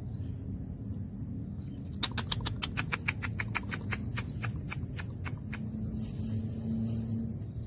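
An animal's clicking call: a quick run of sharp clicks, about ten a second, slowing over some three seconds. A low steady hum follows near the end.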